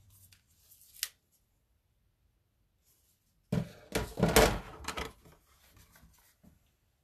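Objects being handled close to the microphone: a single click about a second in, then a second-and-a-half cluster of knocks and rubbing about halfway through.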